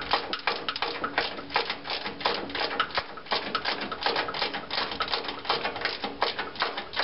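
Hand ratchet with a 10 mm socket clicking rapidly and a little unevenly as a bolt is run down and snugged tight.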